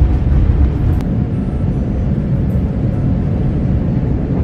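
Jet airliner's engines and airflow heard from inside the cabin during takeoff and climb: a loud, steady low rumble.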